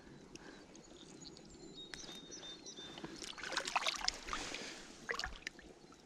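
Stream water sloshing and trickling around a wading angler and his landing net. From about three seconds in, a spell of sharp clicks and rustling joins it.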